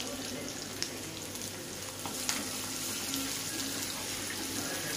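Chopped onions, garlic and curry leaves sizzling steadily in hot oil in a clay pot while being stirred with a wooden spoon, with a couple of light clicks.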